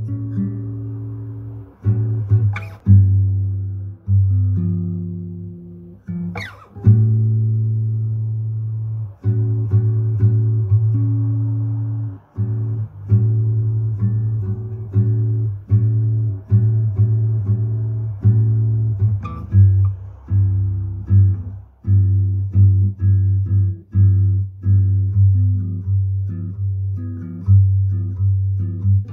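Instrumental background music: plucked string notes, each struck and dying away, over a steady low bass.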